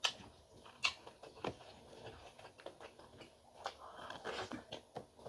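A person chewing and smacking a mouthful of food close to the microphone, with a few sharp clicks.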